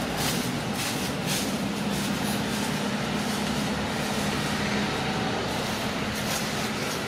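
A motor vehicle's engine running, a steady hum under a rushing noise.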